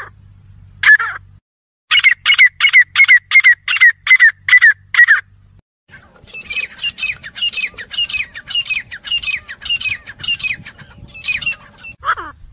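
Grey francolins calling: a loud, rapid series of harsh, repeated notes, about three a second, followed by a second, fainter and longer series of the same notes, and a single falling call near the end.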